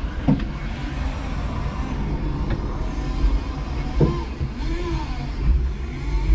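Electric forklift running under load, with a steady low rumble and a faint motor whine that rises and falls in pitch as it manoeuvres. Two short knocks, one just after the start and one about four seconds in.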